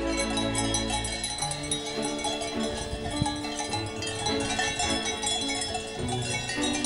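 Many cowbells on a herd of grazing cows ringing and clanking irregularly, their tones overlapping at different pitches. A low rumble sounds during the first second or so.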